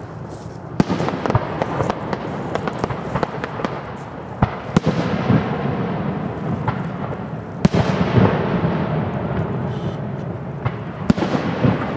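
Aerial fireworks display: comets and shells launching and bursting in a string of sharp bangs, the strongest about a second in, near five seconds, around eight seconds and near eleven seconds, over a continuous dense rumble of further reports.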